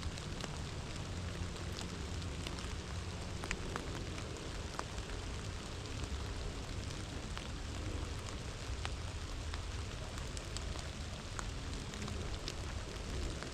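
Steady rain falling, with individual drops making sharp scattered ticks close to the microphone, over a low steady rumble.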